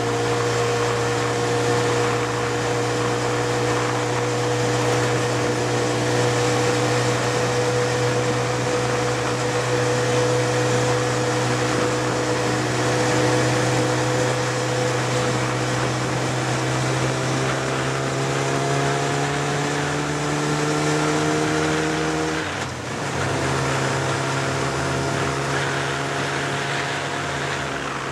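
Vehicle engine heard on board, running steadily under way with wind and road noise. Its pitch climbs slowly as it accelerates, then drops suddenly with a brief dip in level near the end: an upshift, after which it runs steadily again.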